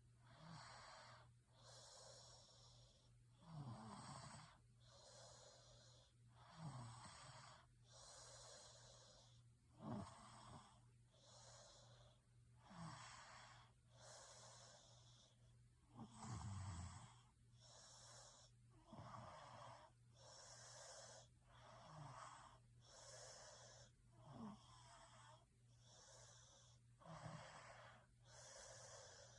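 A person snoring faintly and regularly, about one breath every three seconds. Each breath is a low rattling snore followed by a breathy rush of air.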